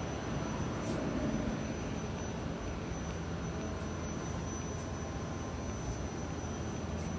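Steady low mechanical hum of factory machinery, with a thin constant high whine over it.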